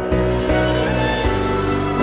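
Slow instrumental music: held notes and soft percussive hits of the backing track for a dizi (Chinese bamboo flute) piece.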